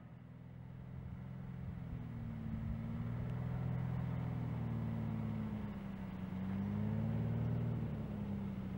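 Beechcraft T-34 Mentor's engine and propeller droning as the plane takes off again in touch-and-go practice. The drone grows louder, is loudest about three quarters of the way through, then eases off slightly.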